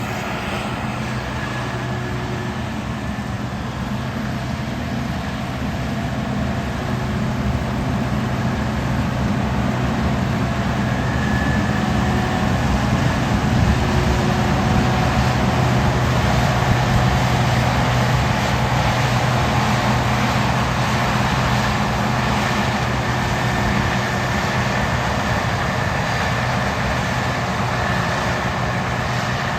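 Case IH 2166 combine running steadily while harvesting corn: a continuous diesel-engine and threshing-machinery drone with a steady low hum, growing somewhat louder through the middle and easing a little near the end.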